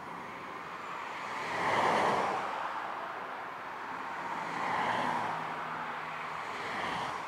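Jet engines of a taxiing Airbus A320-family airliner: a steady rushing roar that swells and fades about three times.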